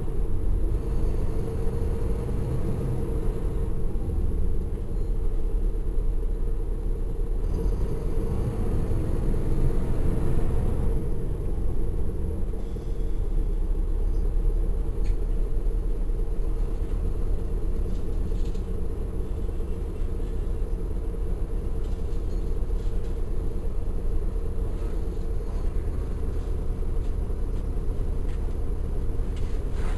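Caterpillar C13 ACERT inline-six diesel of a 2009 NABI 416.15 transit bus running under way, heard from the rear seats as a steady low rumble. It swells louder about ten seconds in, then settles back to an even drone.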